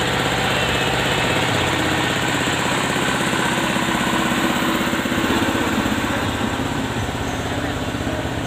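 A large stacked carnival loudspeaker system playing very loud bass, heavily distorted and clipped, heard as a steady, fast-throbbing drone. The pattern of the throb shifts about five seconds in.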